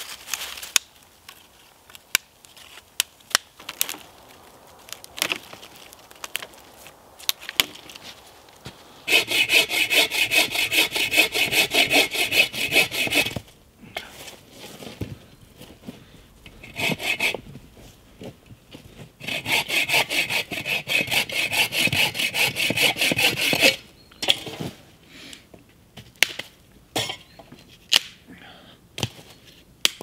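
Hand saw cutting through a fallen branch in two bouts of fast, even strokes, each lasting a few seconds. Before and after the sawing there are scattered sharp snaps and cracks of small dry twigs being broken off and handled.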